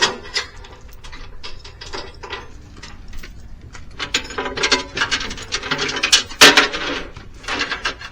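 Steel tie-down chain and load binder being worked while chaining equipment to a trailer: irregular metallic clinks and clicks, sparse at first and busier from about halfway, with one loud clank a little past halfway.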